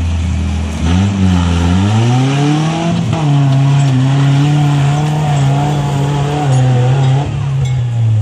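Toyota 4Runner's 22RE four-cylinder engine revving hard under load as the truck climbs a snow bank. The revs climb over the first few seconds, hold high and steady, then fall away near the end.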